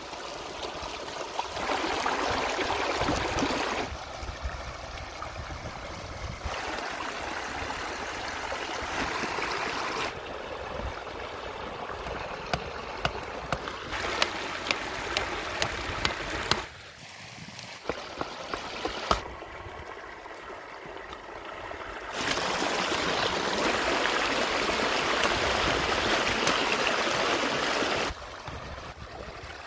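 Flowing river water rushing and trickling steadily. Its loudness jumps abruptly up or down several times, with a scatter of sharp clicks or small splashes in the middle.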